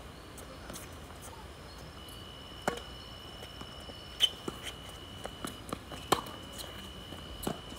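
Tennis ball struck by rackets and bouncing on a hard court: a handful of sharp pops, the loudest about four and six seconds in as a serve comes over and is returned with a backhand. A thin steady high whine runs underneath from about two seconds in.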